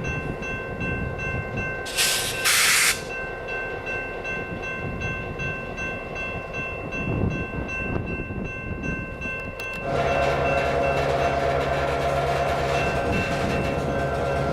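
Diesel locomotive running steadily, with two short hisses about two seconds in. About ten seconds in it grows louder with a deeper, steady engine note, as if the engine is throttling up.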